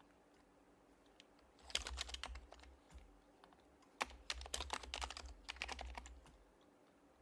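Typing on an HHKB Professional Hybrid Type-S keyboard with silenced Topre switches: a short burst of keystrokes about two seconds in, then a longer run from about four to six seconds.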